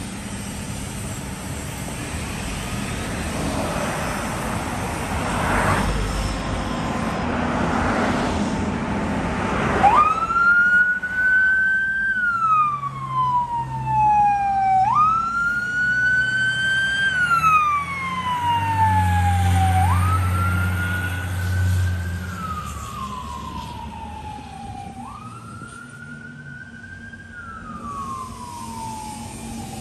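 A fire engine's engine running, then its siren starts about a third of the way in and wails over and over. Each cycle jumps quickly up in pitch and falls slowly back, about every five seconds, and the siren grows fainter near the end as the engine drives away.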